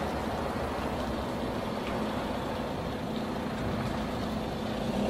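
MAN concrete mixer truck's diesel engine running steadily as the truck moves slowly.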